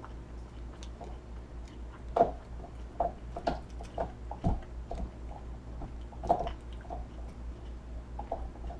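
Close-up eating sounds: a person biting and chewing a crispy fried vegetable egg roll, with irregular crunches between quieter chewing.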